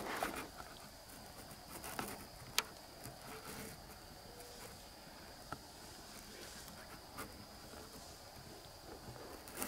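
Steady high-pitched trill of night insects in the woods, a cricket-like chorus, with a few faint sharp clicks scattered through it, the clearest about two and a half seconds in.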